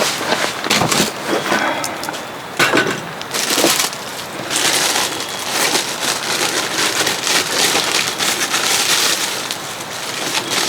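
Heavy rain falling on a tent, a dense, steady patter of drops, with a few sharper knocks and crackles in the first few seconds.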